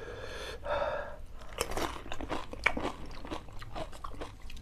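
Close-up mouth sounds of a person eating pani puri: crisp fried puri shells filled with spiced water crunching and being chewed wetly, with many short sharp crackles from about a second and a half in.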